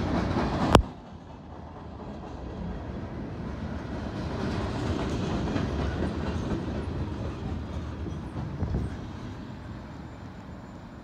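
A CN freight train's cars rolling past on the rails. A sharp click comes just under a second in, and the level drops at once. The rumble then swells again and fades as the last cars go by.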